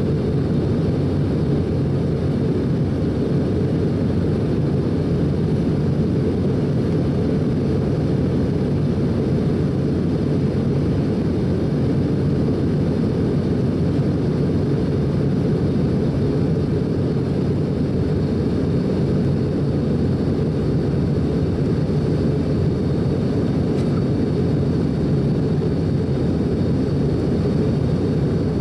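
Steady low rumble of an Airbus A319 in flight, heard inside the passenger cabin: jet engine and airflow noise during the climb after takeoff.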